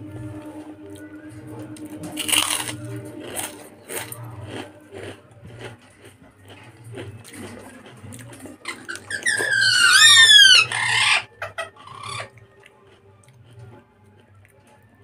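Close-up eating sounds from a meal eaten by hand: chewing, lip smacks and soft wet mixing of khichuri, with a loud crunch about two seconds in as a piece of papad is bitten. Near the middle, a loud run of high squealing calls, each rising and falling in pitch, lasts about two seconds.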